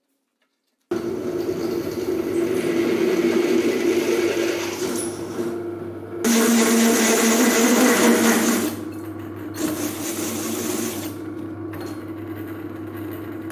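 Drill press running a hole saw through thin sheet steel: a steady motor hum under a cutting noise, loudest from about six to nine seconds in, then easing and stopping just before the end.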